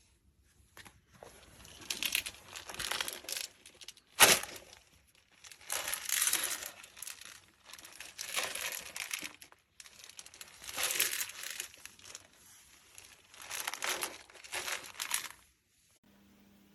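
Crinkling and rustling of plastic packaging being handled, in a run of bursts about a second long, with one sharp knock about four seconds in.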